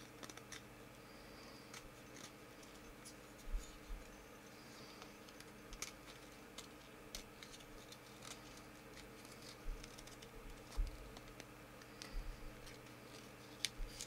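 Knife blade whittling a thin wooden stick into a fork: faint, irregular small clicks and short scraping strokes as shavings come off, over a steady low electrical hum.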